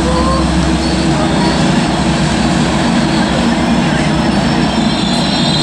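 Metrolink diesel locomotives idling, a steady low engine rumble.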